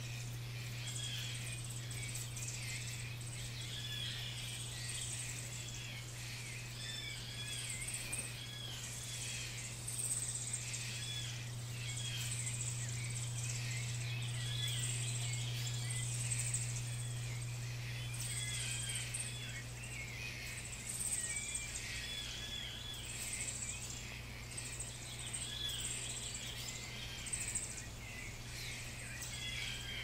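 Birds chirping over and over in short arched notes, with a high insect buzz that swells and fades in pulses of about a second, over a steady low hum.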